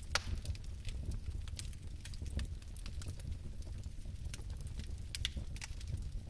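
Fire crackling: scattered sharp crackles and pops over a low steady rumble of flame, the loudest pop just after the start.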